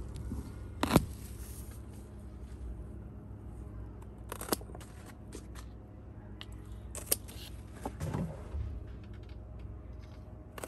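Scissors snipping bottle-gourd leaf stems: a few sharp clicks, the loudest about a second in, over a steady low background rumble.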